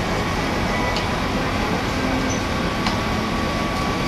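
Steady rushing background noise with faint voices and a few light clicks.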